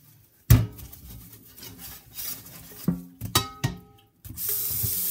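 A stainless steel frying pan being handled in a metal sink, knocking against it a few times with short ringing clanks. Near the end the tap is turned on and water runs steadily into the sink.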